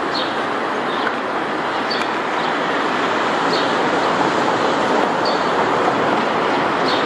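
Boeing 777 airliner on approach with gear down, its twin jet engines making a steady rushing noise that grows slowly louder as it comes nearer. Faint short high chirps sound every second or so.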